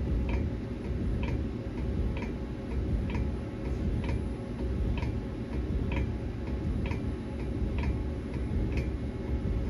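MR2940 alloy-wheel CNC lathe running while its stylus probe digitizes the rim profile: a light tick about once a second over a steady low machine hum.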